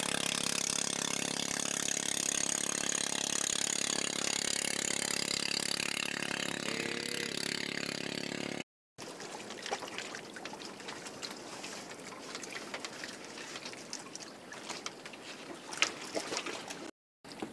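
Engine of a small outrigger motorboat running steadily as the boat speeds away, with a constant hiss over it. About nine seconds in it cuts to a much quieter stretch with scattered light clicks and knocks.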